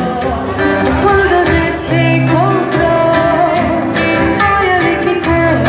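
A woman singing a slow melody into a microphone, accompanied by a plucked acoustic guitar.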